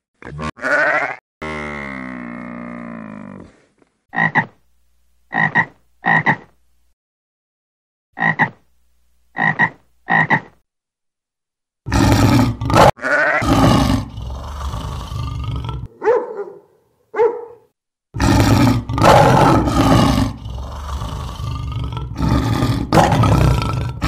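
Highland cattle lowing, one long moo near the start. Then come six short calls in two groups of three, about a second apart. From about twelve seconds in, lions are loudly roaring and growling, with two brief lower grunts in between.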